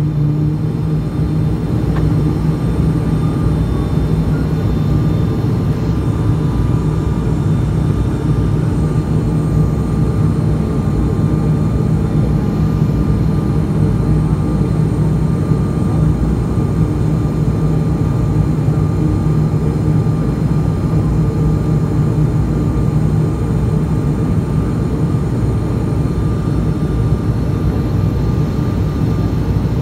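ATR 42-600's turboprop engines and propellers heard from inside the cabin on final approach: a steady drone with a strong low hum, holding an even level.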